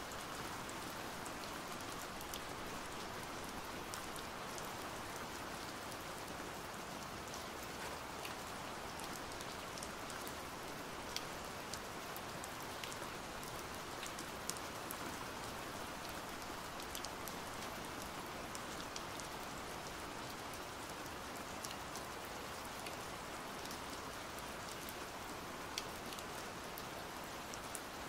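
Steady pouring rain, with scattered sharp ticks of single drops landing.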